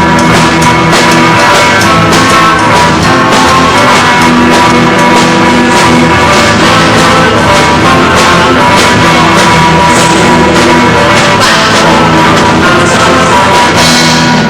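Rock band playing live, with drum kit and guitar, loud and steady; the playing stops abruptly at the very end.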